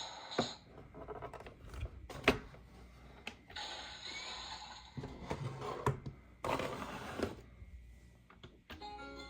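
Plastic toy pieces being handled: a few sharp clicks and knocks, the loudest about two seconds in, with rustling and scraping in between. Music starts near the end.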